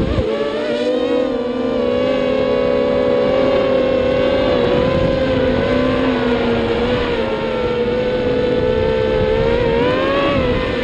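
Stigg 195 FPV racing quadcopter's motors and propellers whining at a fairly steady pitch, with a brief knock right at the start and the pitch climbing shortly before the end as the throttle goes up.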